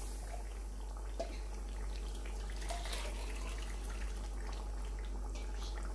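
Pot of chicken broth heating on a gas hob and coming up to the boil: a steady watery hiss with a few faint clicks.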